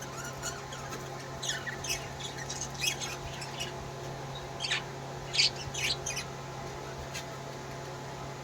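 Pet parrot calling: a string of short, sharp high-pitched squawks and chirps, loudest about five and a half seconds in, over a steady low hum.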